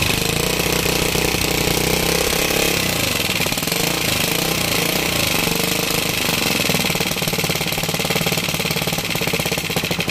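Rusi Macho 150's air-cooled single-cylinder engine running with its valve cover off, its exposed valve train clattering loudly and rapidly. The engine is far too noisy because no oil is being pumped up to the head; a failed oil pump has damaged the cam gear and cam follower.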